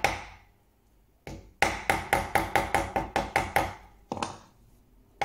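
A small cross-pein hammer tapping a brass hinge down into its recess in a wooden frame. A single tap comes first, then a quick run of about ten light taps at around five a second, then a couple more single taps.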